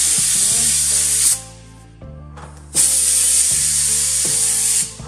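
Compressed-air blow gun blasting the cut, deburred hydraulic tube clean in two loud bursts of hiss: the first about a second and a half long, the second about two seconds long, starting near three seconds in.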